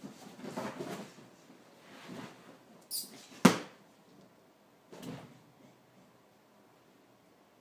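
Scuffling and soft thumps of hand-to-dog play-wrestling with a pitbull, with one sharp knock about three and a half seconds in.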